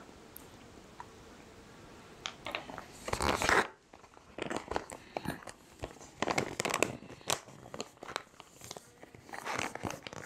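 Foil-lined freeze-dried meal pouch crinkling and crunching as it is handled and folded. It comes in irregular bursts starting about two seconds in, the loudest near the three-second mark.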